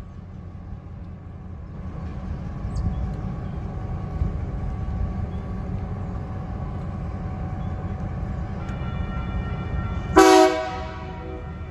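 TasRail TR class diesel-electric locomotives running as light engines at low speed, their low engine rumble growing as they near. About ten seconds in there is a short, loud horn blast, the loudest sound.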